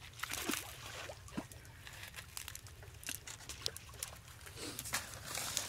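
Cast net rustling and crackling against grass as hands pull its mesh apart to free caught fish, a steady run of small irregular clicks and scrapes.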